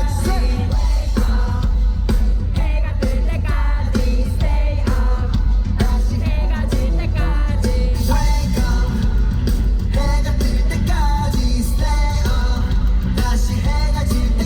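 A pop song performed live: a singer's voice over a loud backing track with a heavy, pounding bass beat.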